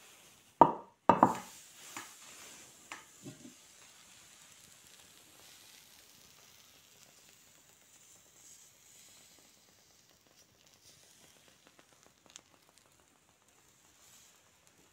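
A glass pan lid knocks twice against a skillet as it is lifted off, with a few lighter clicks after, then eggs fry in the open pan with a faint, steady sizzle that dies away.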